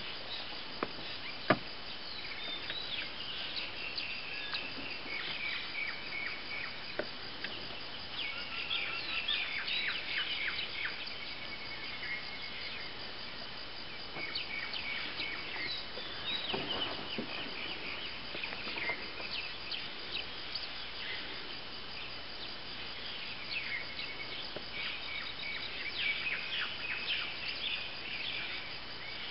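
Natural outdoor ambience: birds chirping in repeated bursts of short calls over a steady insect drone, with one sharp click about a second and a half in.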